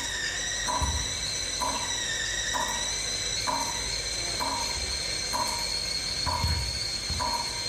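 Eerie, sparse soundtrack music: steady high ringing tones held throughout, a short mid-pitched note pulsing about once a second, and occasional low thuds.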